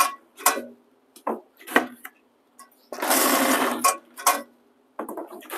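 Cardboard label cores being cut on a core cutter: one harsh rasping cut about a second long midway, with short clicks and knocks of the cutter and core before and after it.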